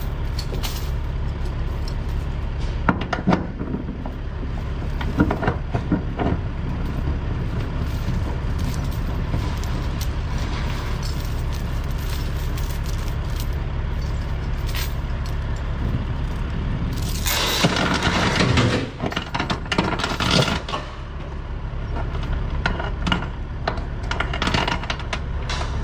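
Steel transport chains clanking and rattling as they are handled and thrown over a flatbed load of steel beams. Scattered single clinks come first, then a long run of clattering about two-thirds of the way in, all over a steady low rumble.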